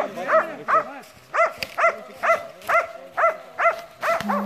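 A hunting dog baying at a wild boar: a steady run of barks, about two a second, with a short pause about a second in.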